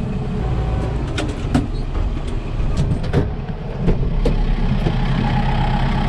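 Tractor engine running steadily, with scattered sharp clicks and knocks over it, and a faint higher-pitched tone joining about five seconds in.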